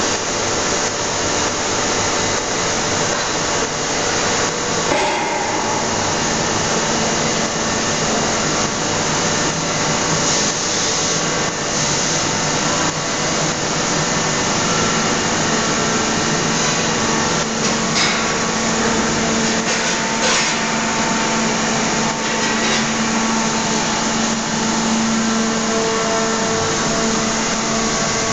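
Steady, loud machinery noise of a hydraulic forging press line: a constant hiss with a steady hum running through it, and a few brief clicks and knocks.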